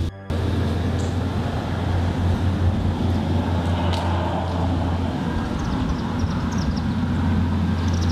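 Water pump churning a pool of green water into bubbles: a steady low hum under a continuous rushing, bubbling noise, cut off briefly at the very start.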